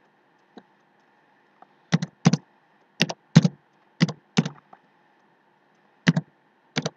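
Computer keyboard keystrokes as a function name is typed, in quick separate clacks starting about two seconds in, pausing briefly and resuming near the end. A single faint click comes shortly after the start.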